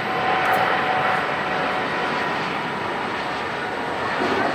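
Airbus A320-232 landing, its two IAE V2500 turbofans giving a steady jet rush with faint whining tones.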